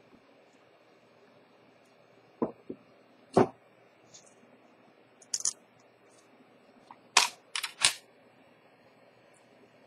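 Small, sharp metal clicks and taps of watchmaker's steel tweezers and the oscillating weight as the rotor is fitted onto a Chanel J12's automatic movement: about seven clicks in small, irregular groups, the loudest a little after three seconds and just after seven seconds.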